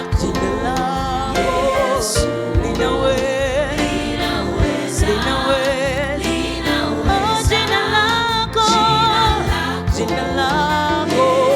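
Gospel vocal group singing a Swahili worship song live, several voices with vibrato over a steady instrumental backing with a regular beat.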